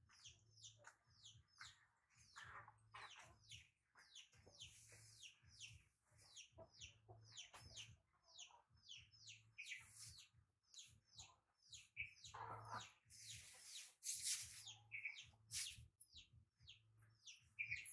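A rapid run of short, high chirps, each falling in pitch, several a second, with a few brief soft rustles.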